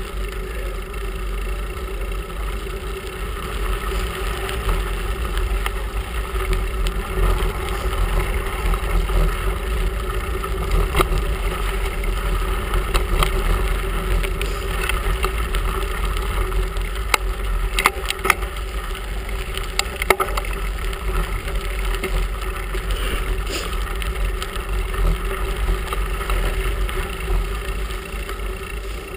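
Bicycle rolling along a gravel and dirt path: steady rumble of the tyres and the ride, with wind on the microphone, and a few sharp ticks and knocks from bumps in the surface.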